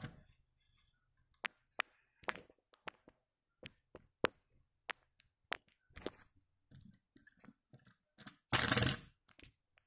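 Sharp clicks and taps of a die-cast toy Porsche Panamera police car being handled on a wooden table, its small doors clicking open and shut. About a second before the end comes a louder, half-second rustling scrape.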